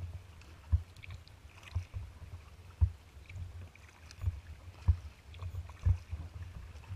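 Kayak being paddled on open water: sharp knocks and splashes about once a second against the hull, over a low steady rumble.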